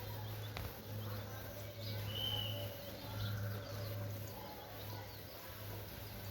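Desi chickens and small birds calling softly in short chirps, one clear high chirp about two seconds in, over a steady low hum.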